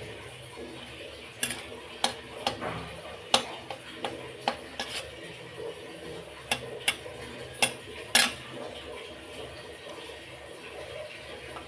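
A flat steel spatula scrapes and clinks against a metal kadhai while stirring a dried red chilli and a bay leaf in hot oil. There are about a dozen sharp clinks in the first eight seconds, over a faint sizzle of the oil.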